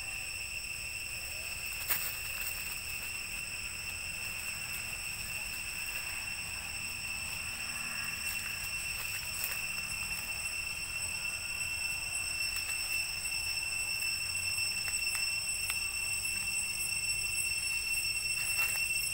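Steady, high-pitched insect drone holding one pitch, over a low rumble. A sharp click comes about two seconds in, with a few faint ticks later on.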